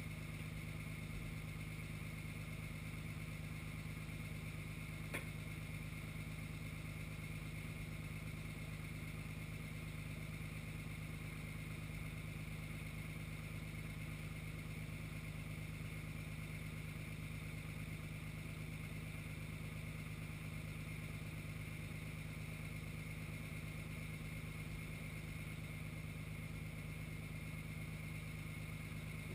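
A truck engine idling steadily, with one sharp click about five seconds in.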